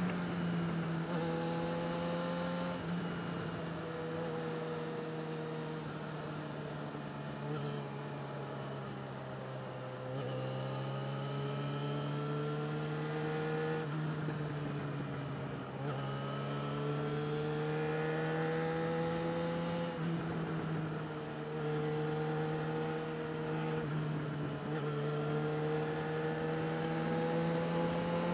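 Yamaha XJ6's inline-four engine running while riding, its pitch rising and falling several times as the revs change, with a few sudden drops.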